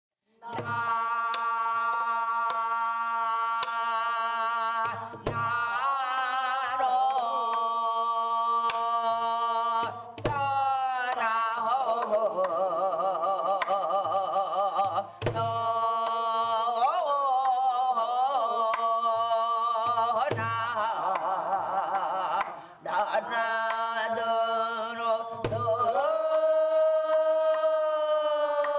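A woman singing a Korean folk song with a wide, wavering vibrato on long held notes, over a steady low drone. A low drum stroke falls about every five seconds.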